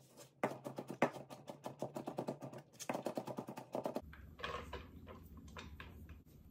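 Chef's knife rapidly chopping garlic cloves on a plastic cutting mat: a fast, even run of knife taps, then slower, scattered taps from about four seconds in.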